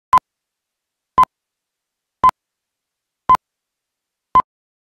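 Film-leader countdown beeps: five short beeps of the same pitch, one about every second, with silence between them.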